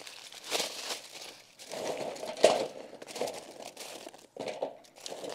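Charcoal briquettes being stacked by hand around a galvanized metal trash can on aluminium foil: irregular clattering and scraping of briquettes with foil crinkling, loudest about two and a half seconds in.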